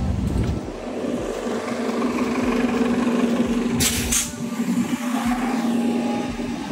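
MTA city bus running at the curb with a steady engine hum, and a short hiss of compressed air from the bus about four seconds in.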